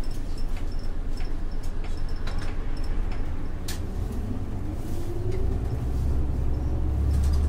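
Isuzu Erga city bus's 6HK1-TCC diesel engine running, heard from inside the cabin. About four seconds in its pitch rises and the low rumble grows louder as the bus accelerates. Small rattles and clicks from the cabin come and go.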